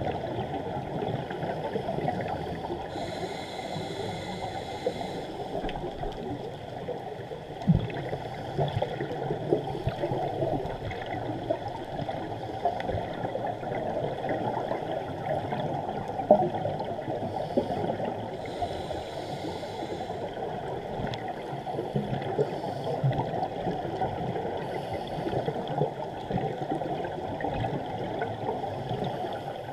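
Underwater sound picked up through a GoPro's waterproof housing on a scuba dive: a steady, muffled, crackling rush. Brief hissing bursts of scuba bubbles come about three seconds in and again near twenty seconds, with a couple of sharp knocks on the housing.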